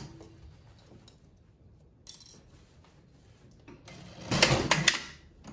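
Quiet fabric handling at an industrial sewing machine, then about four seconds in a brief, loud clatter of rapid clicks and rustling lasting under a second.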